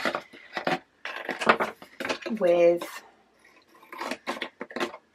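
Scissors snipping through the thin printed cardboard of a kit box: a run of crisp cuts in several short bursts.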